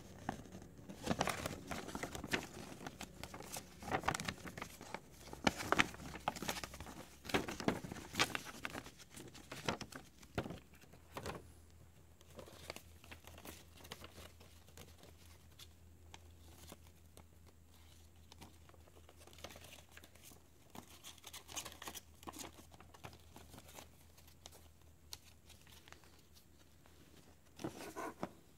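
A folded paper leaflet being handled and unfolded, crinkling and rustling: busy for the first ten seconds or so, then only occasional soft rustles, with another crinkle near the end.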